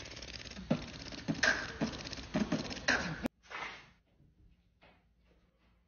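Beatboxing over the steady buzz of an electric tattoo machine, with a run of kick- and snare-like vocal hits in the second and third seconds. It cuts off abruptly a little over three seconds in, followed by a short rush of noise, a few faint ticks and near silence.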